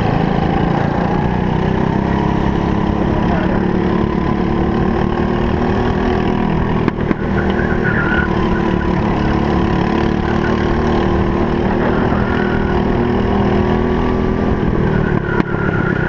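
Single-cylinder four-stroke Briggs & Stratton LO206 kart engine running at racing speed, heard on board, its note drifting up and down through the corners. The sound dips briefly twice, about seven seconds in and near the end.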